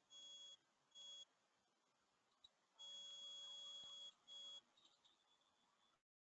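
Near silence with faint electronic beeps of uneven length: two short ones in the first second or so, then a longer beep of about a second near the middle and a short one right after it.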